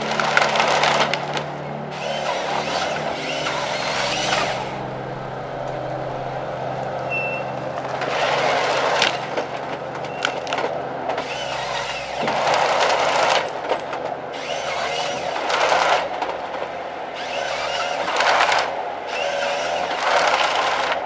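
Ecolog 590D forestry harvester with a Kesla 28RH head at work: its diesel engine runs steadily under repeated bursts of wood cracking and splintering as the head handles the trees.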